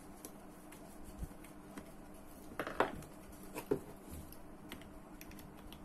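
Small clicks and taps of Ryobi AP Power 8000 spinning reel parts being handled and fitted together during reassembly, with two louder knocks about three and three-and-a-half seconds in. A faint steady hum sits underneath.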